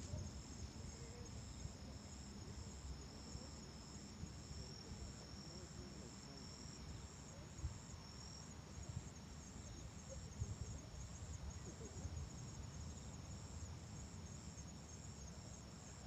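Crickets trilling in the grass: one steady high trill and one pulsing at about two to three chirps a second, with a low wind rumble underneath.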